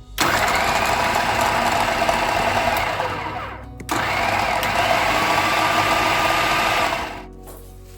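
Electric kitchen chopper motor running in two long bursts of about three seconds each, with a short break between them; its pitch shifts slightly as the blades work through the food.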